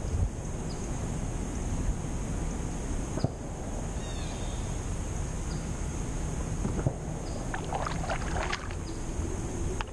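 Kayak moving over calm lake water: a steady low rumble of wind and motion on the boat-mounted microphone, with a few quick paddle splashes and drips near the end.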